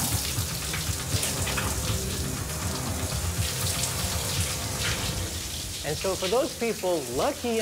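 Shower spray running steadily in a tiled shower stall, an even hiss of falling water, over low background music. A voice comes in near the end.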